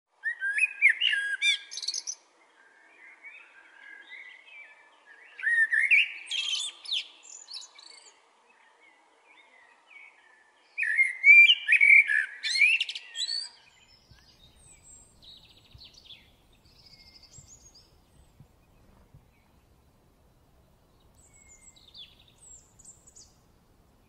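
Common blackbird singing: three loud warbling phrases, each two to three seconds long and about five seconds apart, ending in higher, thinner twitters, with quieter phrases between them. After about fourteen seconds only faint, scattered high chirps remain.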